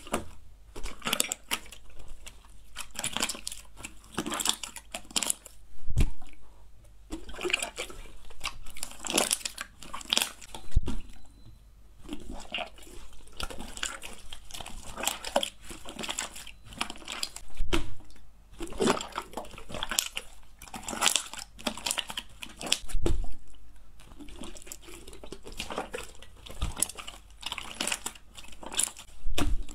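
White slime squelching and crackling as hands knead, fold and stretch it, its trapped air pockets giving off a dense run of sticky clicks. Sharper, louder snaps come every five seconds or so, about 6, 11, 18 and 23 seconds in.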